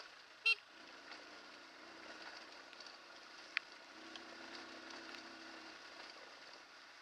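Hartford VR150's 150cc air-cooled single-cylinder engine running at low speed over a rough gravel track, with scattered small clicks and rattles. A short, sharp high-pitched beep about half a second in is the loudest sound.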